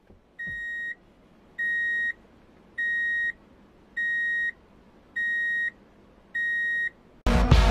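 Six evenly spaced electronic beeps, each a steady high tone about half a second long, repeating roughly every 1.2 seconds during a break in the background song. The song comes back in loud near the end.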